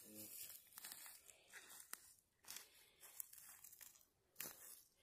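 Faint, irregular crunching and rustling of footsteps in dry leaf litter.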